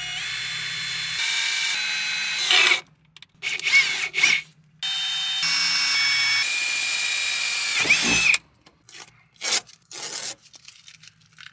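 Ryobi cordless drill drilling through masking tape into an aircraft instrument panel: a steady motor whine for about two and a half seconds, a pause with a few brief bursts, then a second run of about three and a half seconds that winds down. Near the end come a few short scratchy sounds as the masking tape is peeled off.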